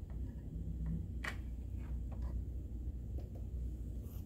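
Quiet handling sounds: a few faint ticks and rustles of fingers and thread against a sewing machine's metal thread guides, the clearest tick a little over a second in, over a low steady hum.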